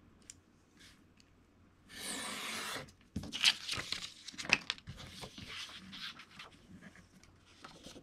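Craft knife drawn once along a ruler through a printed sheet, a steady scratching cut lasting just under a second. Then a flurry of clicks and paper rustling as the ruler and sheet are lifted and handled.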